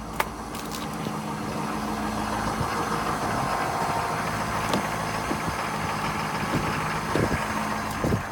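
Ford 7.3L Powerstroke turbo-diesel V8 idling steadily after a cold-weather start, settled and running smoothly. A sharp click comes just after the start and a few short knocks near the end.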